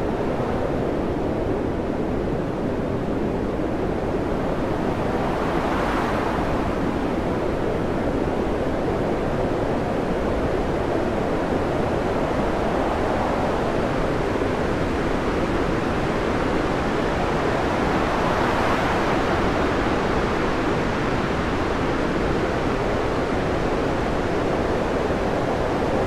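Storm wind and heavy seas heard from a ship's bridge: a steady rushing noise that swells twice as the bow ploughs into waves and throws spray.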